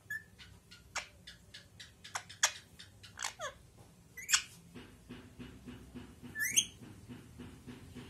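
Rose-ringed parakeet clicking and chirping: a string of short sharp clicks and chirps, with a few louder shrill calls, the last a rising whistle near the end, and a quicker run of clicks in the second half.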